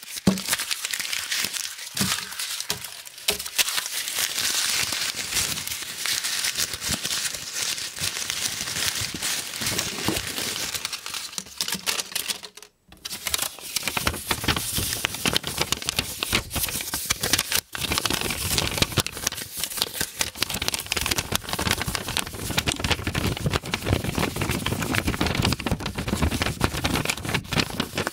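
Euro banknotes being crumpled and rubbed between the fingers: continuous dense crinkling and crackling, with one brief pause about halfway through.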